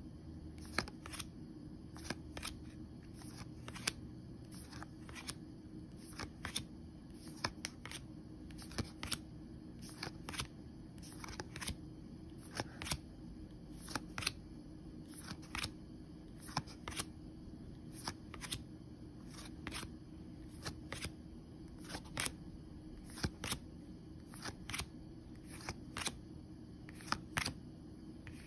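Glossy EPOCH J.League trading cards flicked one by one off the top of a stack in the hand, each card giving a short crisp snap, irregular at about one to two a second, over a faint steady low hum.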